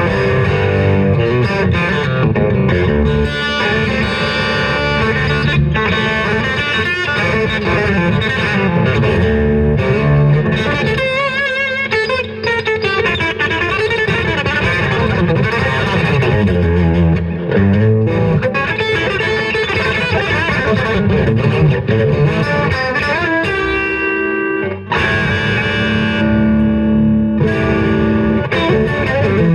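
Electric guitar fitted with a Guyker tremolo bridge and locking tuners, played continuously through effects with some distortion. Notes waver in pitch around the middle, as the tremolo is worked to test whether the guitar stays in tune.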